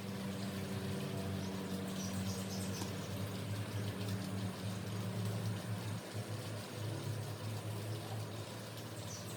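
Flowing water hissing under a steady low hum, with faint high bird chirps.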